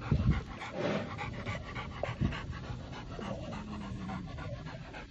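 Dogs panting with quick, steady breaths, worn from pulling in a long tug of war. A low thump near the start and another about two seconds in.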